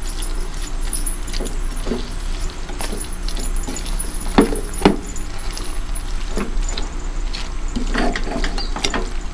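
Plastic spatula stirring chicken pieces in an enamel pot, with irregular knocks and scrapes against the pot's sides.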